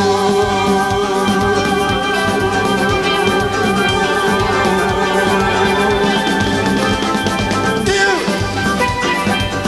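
Live calypso band playing an instrumental passage: steelpan carrying the melody over a drum kit.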